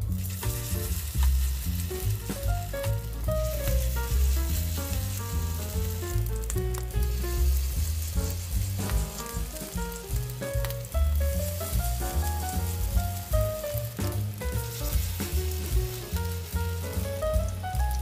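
Hot oil sizzling steadily in a frying pan as spoonfuls of batter fry into patties, under background music with a melody and steady bass.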